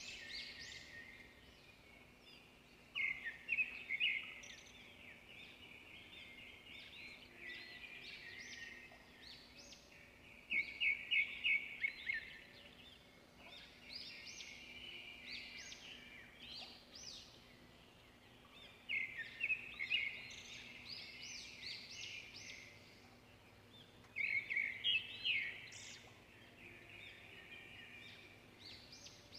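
Birds chirping: runs of quick repeated chirps that come in louder bursts every several seconds, the loudest around 3, 11, 19 and 24 seconds in, over a faint steady hum.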